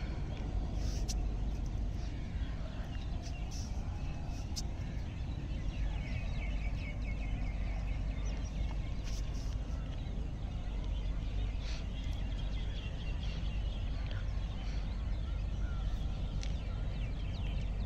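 Steady low outdoor background rumble by open water, with faint short bird calls now and then.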